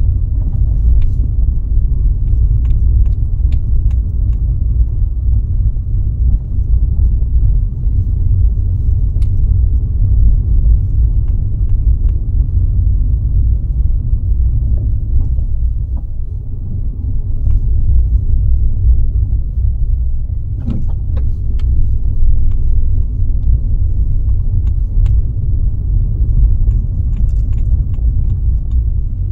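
Car driving along at steady speed: a continuous low road-and-engine rumble, with occasional light clicks and rattles.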